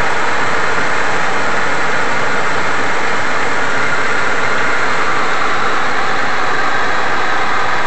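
Norfolk Southern autorack freight train rolling past, a loud steady noise of steel wheels running on the rails.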